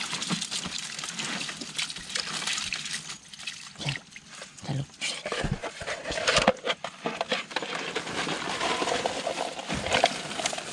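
Water dripping and sloshing, with a run of small clicks, knocks and rustles as hands work through a wet fishing net.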